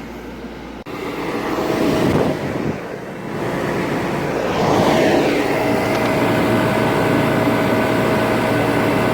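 1972 Emerson Quiet Kool Modulaire 10,000 BTU window air conditioner running: a loud, steady rush of fan air with a steady motor hum. It gets louder about a second in and again around five seconds in, as the back of the unit is approached.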